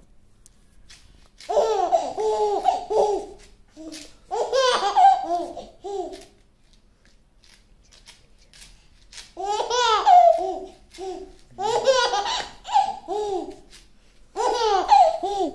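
A baby laughing in several short bouts of quick, high-pitched pulses, with a pause of about three seconds midway.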